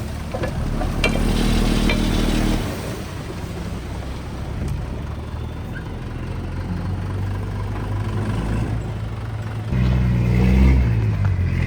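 Heavy diesel engine running, working harder and louder twice: about a second in for a second and a half, and again near the end.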